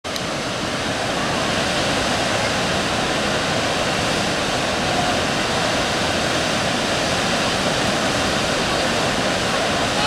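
Waterfall with several falls pouring over a wide rock cliff into a plunge pool: a steady, even rush of falling water.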